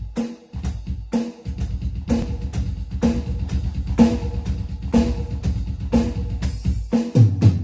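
Electronic drum kit played in a steady beat, with kick and snare hits; the strongest strikes land about twice a second.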